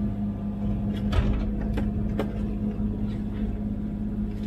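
Komatsu PC16 mini excavator's diesel engine running steadily, heard from the operator's cab, with a few short sharp knocks and clunks from the machine as its arm moves, the loudest about a second in.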